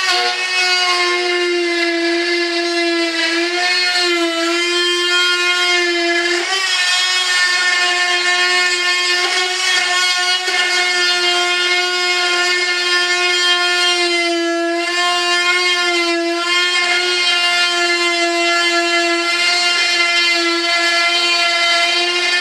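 Handheld rotary cutting tool running with a steady high-pitched whine, its pitch wavering and briefly dipping as the cut-off wheel is pushed into the edge of a cured fiberglass mold to trim off the excess cloth.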